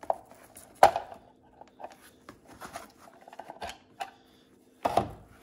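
Hard plastic clicks and knocks as an electric pencil sharpener's plastic housing is pulled up off its base and handled. The sharpest knock comes about a second in, and a few more come near the end.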